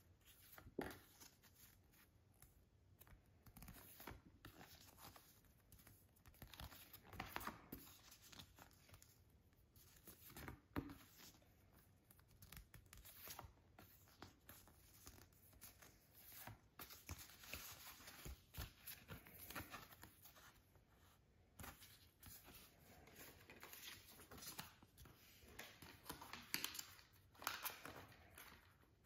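Faint, irregular rustling and sliding of stiff printed cards being leafed through by hand, with small taps and clicks. Near the end, a plastic disc case is handled.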